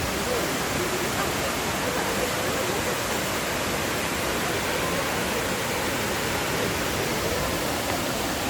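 Steady, even rush of Fukuroda Falls, the water falling over its tiered rock face.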